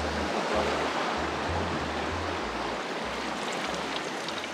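Shallow surf washing around shoreline rocks with a steady rushing hiss, under background music carrying a low bass line of short, separate notes.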